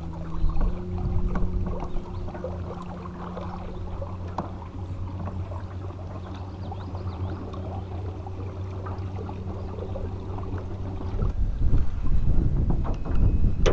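Electric side-mount trolling motor running steadily on a canoe, a low hum that steps up slightly in pitch about a second in, with water splashing against the hull. The hum stops about 11 seconds in, and loud wind buffeting on the microphone follows.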